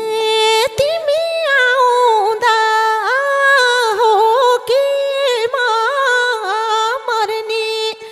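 Nepali live dohori music: a voice sings a long, wordless, ornamented melodic line, bending between held notes over a steady drone tone.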